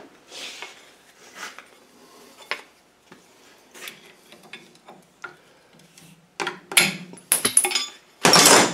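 Steel tools clinking and scraping on an LT77 gearbox layshaft as a roller bearing is prised off with a pry bar and thin wedges. Light taps and clicks at first, then several sharp metal clanks in the last few seconds, the last and loudest leaving a brief high ring.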